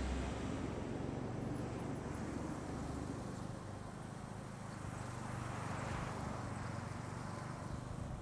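Small motorcycle taxi (boda boda) engine running steadily while riding along a street, under a steady rush of road and wind noise.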